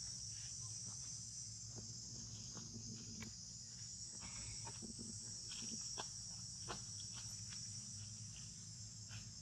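Steady high-pitched insect chorus, with scattered light clicks and rustles of small movements in dry leaves and a faint steady low hum underneath.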